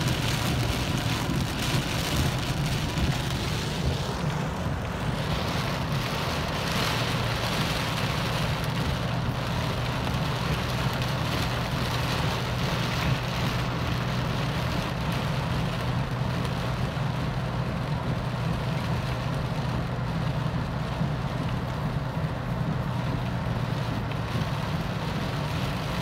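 Rain falling on a car, heard from inside the cabin over the steady low hum of the vehicle.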